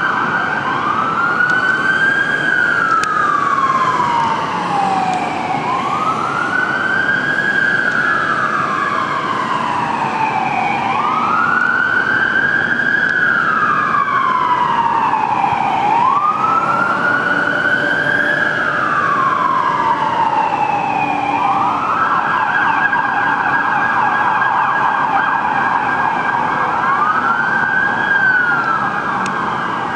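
Queensland Fire and Rescue Service fire engine sirens wailing, each cycle rising quickly and falling slowly about every five seconds, with a second siren overlapping. From about twenty-two seconds in, one siren holds a steady high pitch while the other keeps wailing, over the low rumble of the trucks on the road.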